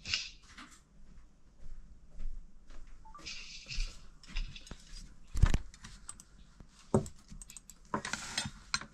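Scattered small clicks and knocks, with one louder thump about five and a half seconds in and two short bursts of rustling hiss.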